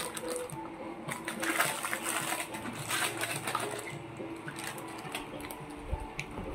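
Thin plastic packaging bags crinkling and rustling, with small clicks of plastic toy pieces being handled, busiest in the first half.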